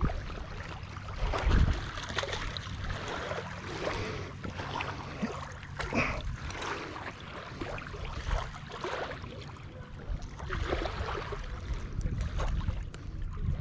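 Wind rumbling on the microphone over water lapping and trickling in the shallows, with irregular scuffs and splashes as a hooked bass is pulled out of the water and handled.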